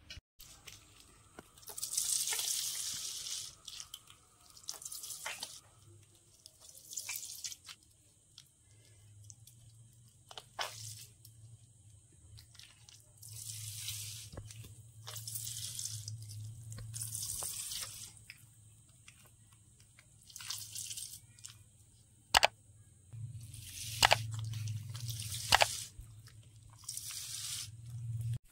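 Wet squelching and squishing as ripe palmyra palm fruit is squeezed by hand, pulp dripping into a steel bowl, in repeated short bursts. A few sharp clicks come near the end.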